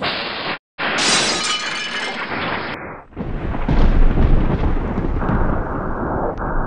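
Added sound effects of a wall being blasted in: a short burst, a sudden break, then a crash of breaking masonry and shattering glass. About three seconds in, a long, deep explosion rumble takes over, loudest about a second later.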